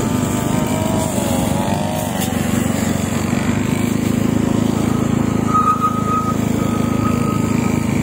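Backpack petrol brush cutters running steadily at working speed while cutting grass, a continuous engine drone.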